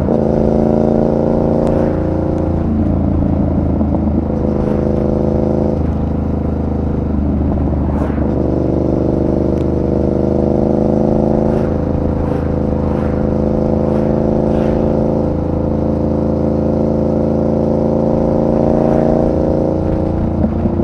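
Yamaha MT-07's 689 cc parallel-twin engine under way on the road. The revs climb and then drop back several times, as through gear changes. A few short sharp ticks sound over it.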